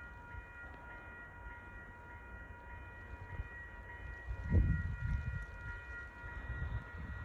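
Passenger train running: a steady low rumble under a thin, steady high whine, with louder low bumps starting about four and a half seconds in.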